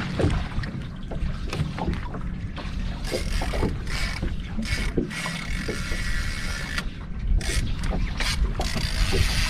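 Wind buffeting the microphone and small waves slapping against the hull of a small boat on open water, with scattered light knocks and brief hissing gusts.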